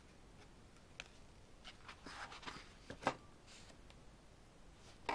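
Pages of an album's photo book being handled and turned: soft paper rustling with a few sharp clicks and taps, the loudest about three seconds in.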